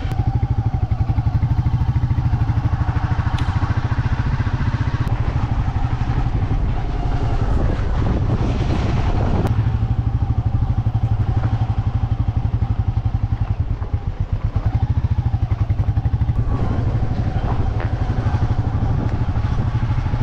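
Royal Enfield Meteor 350's single-cylinder engine running as the motorcycle is ridden, a steady, evenly pulsing exhaust thump. It eases briefly about two-thirds of the way through, and a short rush of noise passes near the middle.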